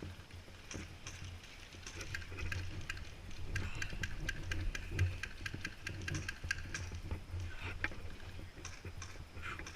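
Airsoft gun firing a rapid string of shots, about five a second for some three seconds in the middle, with scattered single shots around it, over a steady low hum.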